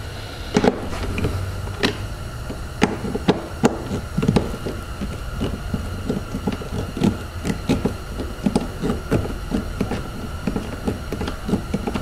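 Socket ratchet clicking in short, irregular runs as a tight 10 mm door-panel bolt is worked loose.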